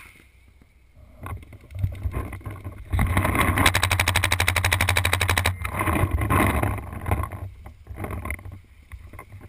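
Paintball markers firing: scattered shots from about a second in, then a fast, even string of shots for about two and a half seconds, then looser shots that die away near the end.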